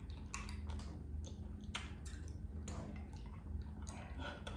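Scattered small clicks and crackles of eating and handling food, over a low steady hum.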